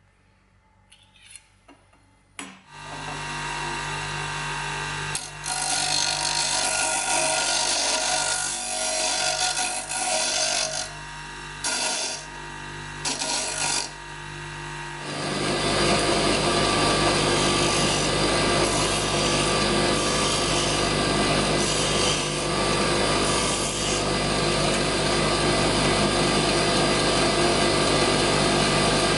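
Electric bench grinder running with a steady hum while a tempered steel plane-blade strip is ground on the wheel, the grinding coming and going in short passes. About halfway through it changes to a louder, unbroken grinding of a blade on a second grinder's wheel.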